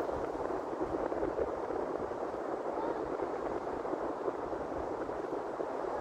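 Steady rushing wind, with gusts buffeting the microphone as an uneven low rumble.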